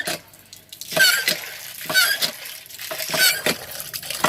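Hand-operated water pump (poso) being worked, its handle giving a squeaky honk on each stroke about once a second, with water splashing out. The pump's plunger seal has been replaced with a piece of rubber slipper, and it now draws a strong flow.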